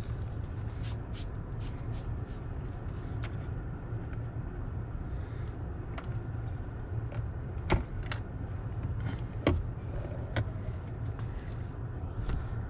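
Steady low hum in a parked car's cabin, with scattered small clicks and taps from a man eating and handling food in the driver's seat, the loudest two a little after the halfway point. Near the end a hand brushes the camera.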